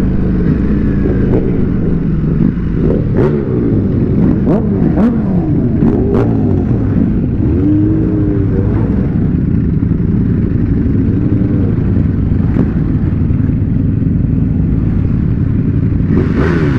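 Superbike engines running at low speed in city traffic: a deep, steady rumble whose pitch rises and falls as the throttles are worked, with a few sharp clicks.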